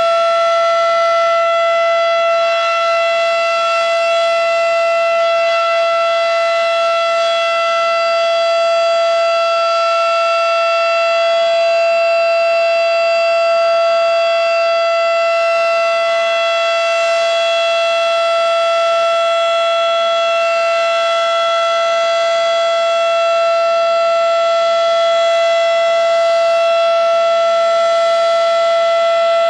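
Model 5 outdoor warning siren sounding a steady, unchanging tone for its scheduled test. It holds one pitch with strong overtones at an even level.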